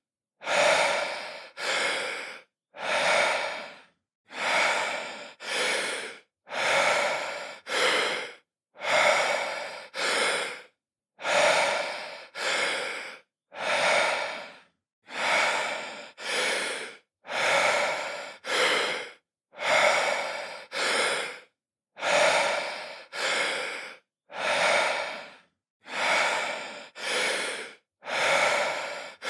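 A man breathing deeply in and out from the lungs, one inhale-exhale pair about every two seconds, each breath a short rush of air with brief silence between.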